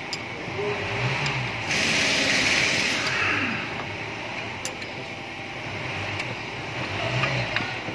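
A few light metal clicks as a threaded caliper piston press is turned by hand against the Mitsubishi Xpander's brake caliper, pushing the piston back in: it goes in freely, so the piston is not seized. Steady workshop background noise runs under it, with a louder burst of hiss for about a second and a half, starting about two seconds in.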